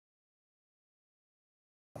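Dead digital silence, with sound cutting back in suddenly at the very end.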